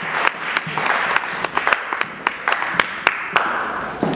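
Audience applauding, a dense patter of hand claps with sharp single claps standing out, thinning a little near the end.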